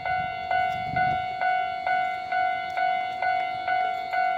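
Japanese railway level-crossing alarm on the Hankai Electric Tramway ringing, an electronic bell tone struck about twice a second, signalling that a tram is approaching the crossing.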